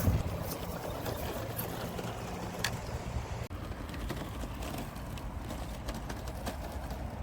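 Small remote-control car running over rough off-road ground: a steady rough noise of tyres on dirt, with a few scattered small knocks.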